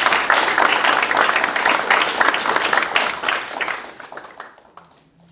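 Audience applauding, a roomful of people clapping. The applause thins out about four seconds in and ends in a few scattered claps.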